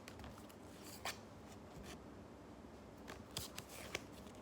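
Faint handling of Pokémon trading cards: quiet rustling with a few short sharp clicks about a second in and several more near the end as cards are flipped through.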